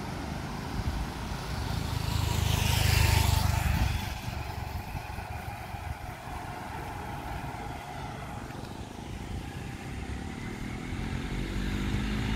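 A road vehicle passes close by, building to its loudest about three seconds in and then falling away. Near the end another engine approaches, its note rising, over a steady background of traffic.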